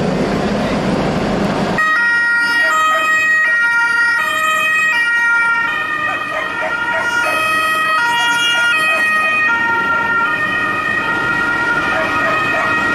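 Street traffic noise that gives way abruptly about two seconds in to several police sirens wailing together. Each siren alternates between a high and a low note about twice a second, and one higher tone holds steady above them.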